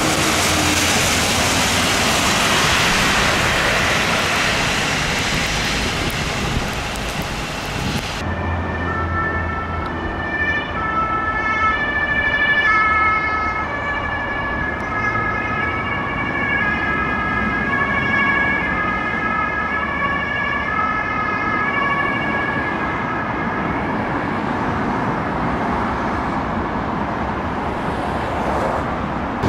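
Traffic noise with tyres hissing on a wet road. From about eight seconds in, a Mercedes-Benz Sprinter ambulance's siren sounds, switching back and forth between two pitches about once a second, with the van's engine running underneath.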